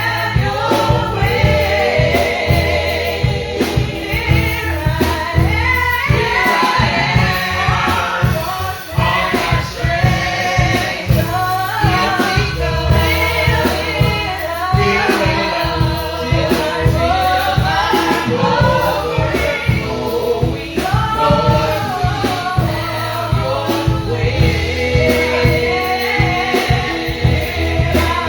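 Gospel praise song: a choir or group of singers with female lead voices singing over a band with steady bass, continuous throughout.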